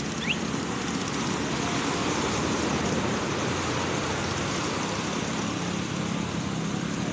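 Motorboat engine running steadily under a rush of water and wind, with two short high rising squeals right at the start.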